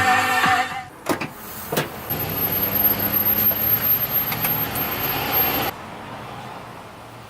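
Vehicle road and engine noise, a steady rushing that cuts off abruptly about two-thirds of the way through and gives way to a quieter low rumble. Before it, a pitched, music-like sound ends about a second in.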